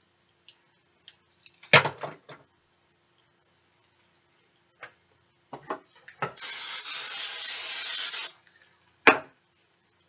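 Handling knocks and clicks, then a steady hiss of an aerosol spray can lasting about two seconds, with one sharp knock near the end.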